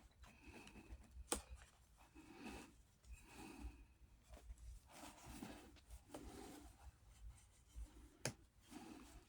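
Faint hand work on saddle leather: soft rubbing and scraping strokes, with two sharp clicks about a second in and near the end.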